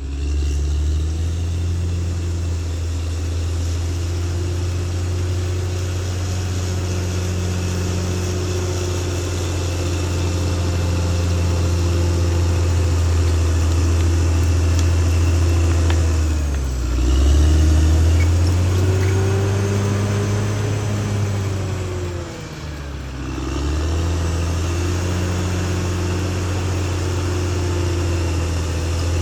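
Caterpillar D6R XL bulldozer's diesel engine running steadily with a deep hum. Twice, past the middle, its pitch dips and picks back up, once under a quick rise in level and once under a short drop, as the load on the engine changes.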